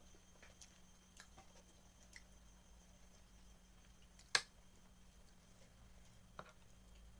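Quiet eating sounds: faint wet chewing and small scattered clicks, with one sharp tap about four seconds in and a softer one near the end.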